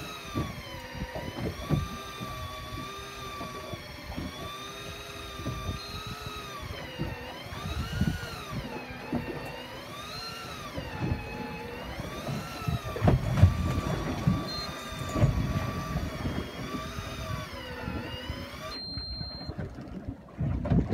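Daiwa Tanacom Bull 1000 electric fishing reel winding in line, its motor whine rising and falling in pitch every second or two; the whine stops about nineteen seconds in. Low rumbling noise runs underneath.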